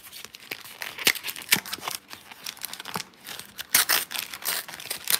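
The outer wrapper of a sleeved Pokémon booster pack being torn open and crinkled by hand: a run of sharp, irregular crackles and rips.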